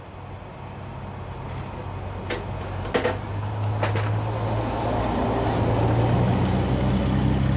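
Low, steady engine hum that grows gradually louder, with a few sharp clicks over it.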